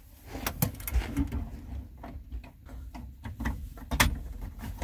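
Scattered clicks and light knocks of plastic parts being handled as cable connectors are fitted to an electronic kitchen faucet's control box, with a sharper knock about four seconds in.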